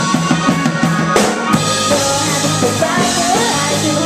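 Live indie rock band playing, with a busy drum kit under keyboards and bass.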